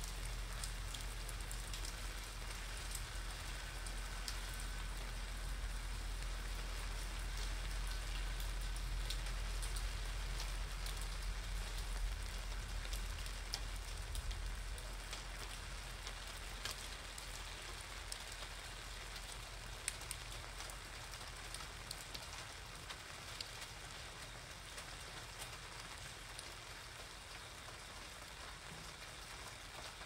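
Steady rain falling on wet pavement and an umbrella canopy, with scattered sharper ticks of individual drops. A low rumble underneath fades away about halfway through.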